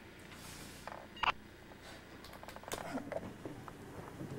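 Handling noise as a camcorder is moved: scattered small clicks, knocks and rustles, with one sharper click a little over a second in.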